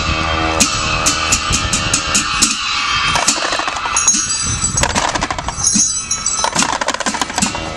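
Live Bhutanese ritual dance music: a low, steady horn drone from long dungchen horns that fades out about two seconds in, under a run of irregular, sharp percussion strikes.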